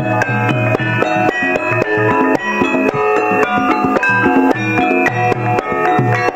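Javanese gamelan music: struck metallophones ringing out a quick, even pattern of notes over hand-played kendang drum strokes.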